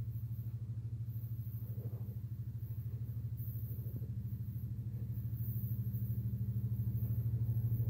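Diesel locomotives approaching from a distance with a train of empty coal wagons: a steady low engine drone with a fast, even pulse, slowly growing louder.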